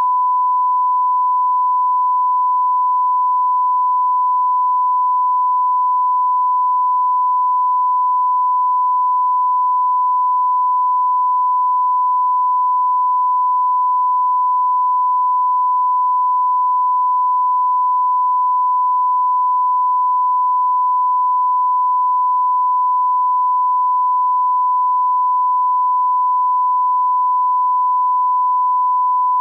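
Steady 1 kHz line-up test tone, a single unbroken pure tone. It is the audio reference signal that accompanies colour bars at the head of a video master, used for setting levels.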